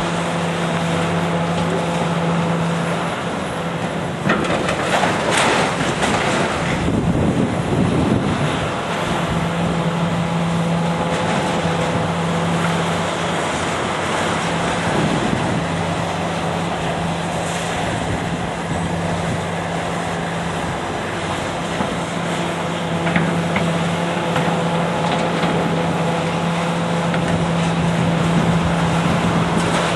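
Heavy demolition machinery running steadily, its engine hum dipping and rising with load. Bouts of crashing and scraping from the steel being torn out come about 4 to 9 seconds in, with a few more sharp knocks later on.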